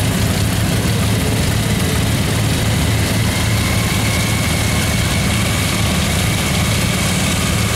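Small garden tractor's engine running steadily as it drives slowly past at close range, with a thin steady whine above the engine note.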